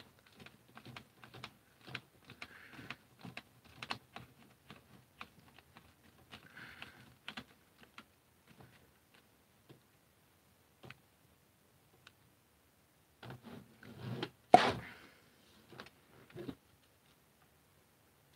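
Screwdriver turning screws into the plastic stock of a Caliburn dart blaster: a run of small irregular clicks and scrapes, thinning out after about eight seconds. About three-quarters of the way through comes a louder knock as the blaster is handled.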